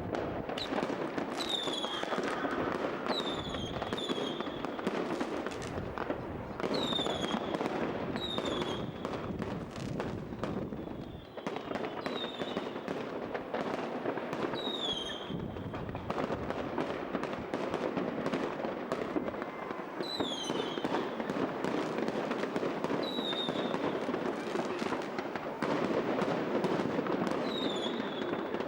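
Fireworks display: continuous crackling and bangs, with short falling whistles every second or two.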